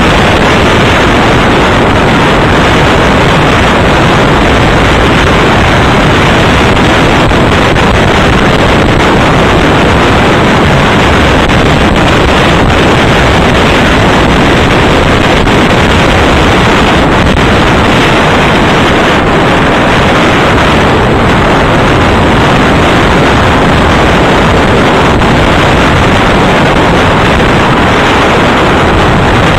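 Loud, steady wind noise rushing over the microphone on the bow of a moving motorboat, an even roar with no let-up.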